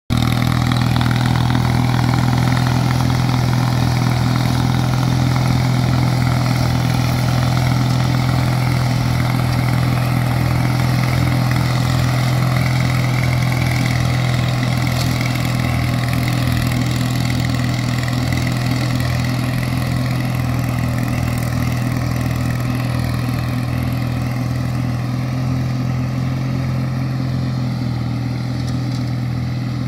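Allis-Chalmers T816 garden tractor's engine running steadily under load while mowing with its 48-inch mower deck engaged. It grows gradually fainter toward the end as the tractor moves away.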